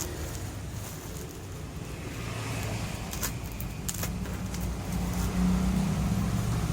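Low, steady engine-like rumble of a motor vehicle that grows louder about five seconds in, with a few sharp clicks.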